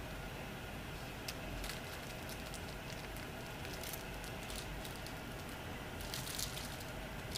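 Scattered light clicks, taps and scratches over a steady hiss as a small dog paws at, bites and tugs a hanging spring-bodied frog toy; a cluster of clicks comes about six seconds in as the toy swings.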